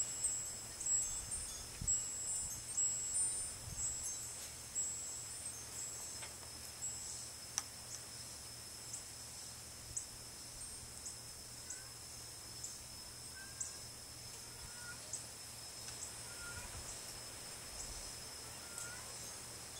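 Wind gusting over the microphone with faint, high-pitched tinkling; the gusts ease after about five seconds, leaving sparse high ticks roughly once a second.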